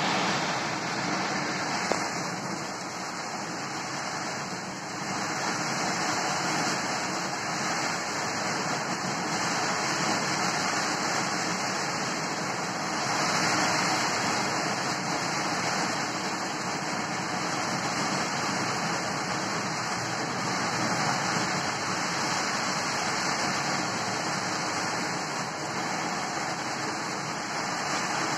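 Heavy rain pouring down in a steady, dense hiss during a storm, swelling louder now and then.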